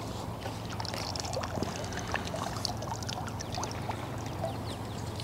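Light splashing and dripping water as a hooked fish is played in at the surface close to the bank on a fishing pole, over a steady low rumble.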